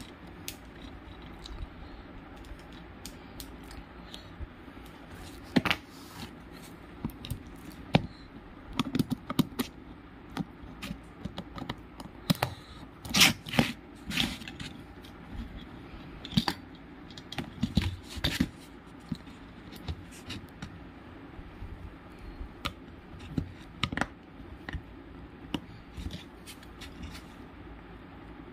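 Irregular clicks, taps and short scrapes of a small screwdriver and stiff wires being worked into terminal connectors while wiring a relay, with a cluster of louder clicks about halfway through.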